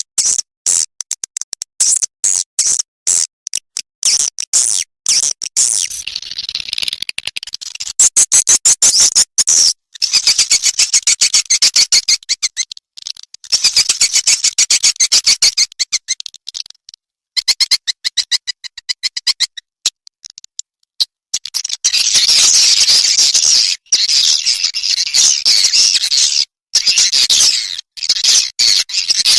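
Swiftlet lure track of edible-nest swiftlet calls, used to draw swiftlets into a nesting house: trains of rapid clicks alternate with stretches of high, dense twittering chirps, with short breaks between phrases.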